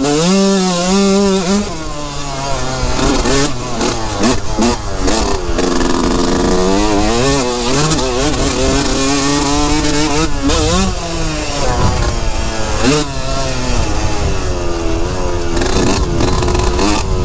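A 2003 Yamaha YZ125's single-cylinder two-stroke engine under way on a dirt trail. Its pitch climbs and falls again and again as the rider accelerates and backs off.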